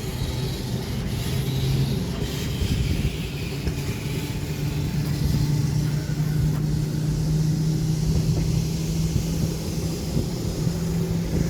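Blackpool English Electric boat car tram under way: a steady running rumble with a hum that rises in pitch a few seconds in as it picks up speed, then holds steady.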